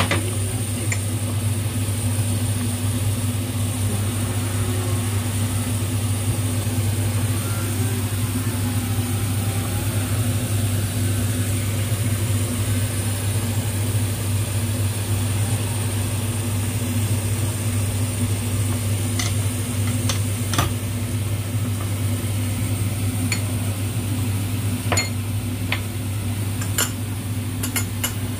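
Steady low mechanical hum over a glass pot of soup boiling on a gas burner, with a few light clicks and clinks near the end.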